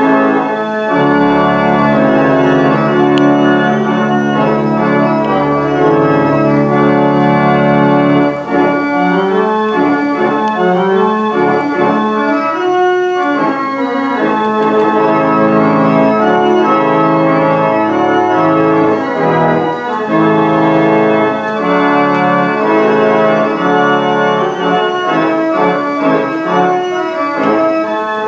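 The 1,972-pipe Aeolian pipe organ played live by hand at its keyboard: a piece of sustained, changing chords, with a deep bass note held under them from about a second in until about eight seconds.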